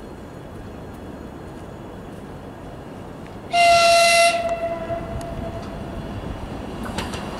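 Horn of an ESh2 double-decker electric train (a Stadler KISS) sounding one short, loud blast about three and a half seconds in, ringing on briefly after it cuts off. Under it the low rumble of the approaching train grows near the end.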